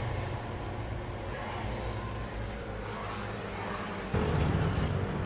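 Steady low hum of a running engine. About four seconds in it gets louder and sharp ticking starts, about two ticks a second.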